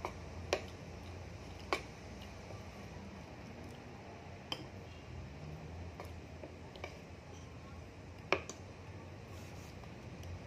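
Small handling sounds at a table: a handful of sharp clicks and taps a second or more apart, from plastic packaging and utensils being handled, over a low steady hum.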